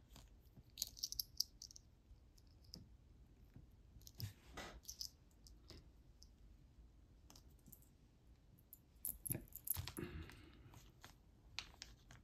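Faint, scattered small clicks and taps of a small metal locket and tools being handled while a loose marcasite stone is set back into it, with a cluster of clicks about a second in, another around four seconds, and a busier run of taps and a short scrape near the end.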